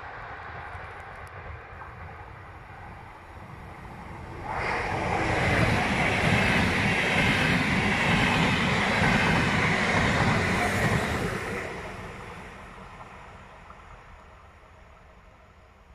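Double-deck electric multiple unit passing close by at speed. The rumble and rail noise rise suddenly about four and a half seconds in, stay loud for about six seconds, then fade slowly as the train moves away.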